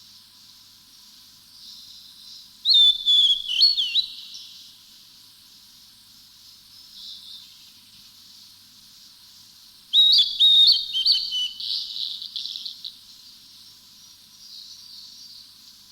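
Wild birds singing in highland country: two bursts of quick, gliding whistled notes, one about three seconds in and another about ten seconds in, over a steady high-pitched background chorus.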